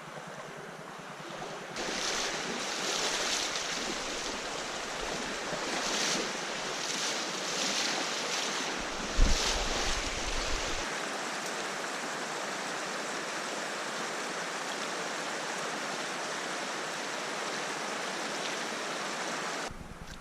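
Steady rushing of a mountain stream, heard through a chest-mounted GoPro's microphone. The rush grows louder about two seconds in and drops back near the end, with a sharp thump and a brief low rumble on the microphone about nine seconds in.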